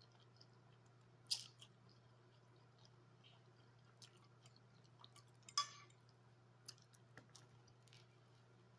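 Faint eating sounds: a handful of short clicks and mouth noises while eating, the two loudest about a second and a half in and about five and a half seconds in, over a low steady hum.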